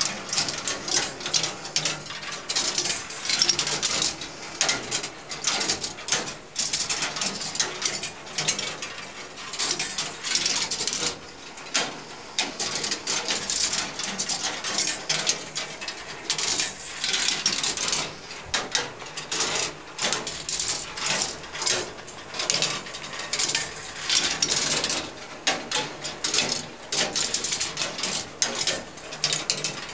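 Meccano-built ball machine running: a continuous, uneven clatter of small clicks and rattles as its mechanism turns and balls roll and drop against its metal strips and tracks.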